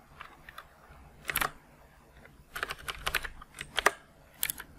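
Typing on a computer keyboard: scattered key clicks in a few short irregular runs.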